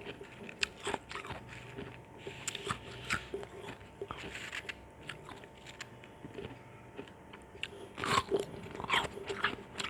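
Ice chunks crunched between the teeth: irregular sharp cracks and chewing, with a louder flurry of crunches about eight seconds in.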